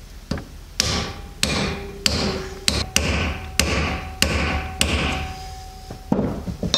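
Hammer blows driving a new kingpin bushing into the spindle bore of a Mack truck's Dana/Spicer steer axle, struck through a driver held in the bushing. There are about eight steady strikes roughly two-thirds of a second apart, each with a short metallic ring, then a couple more after a brief pause near the end.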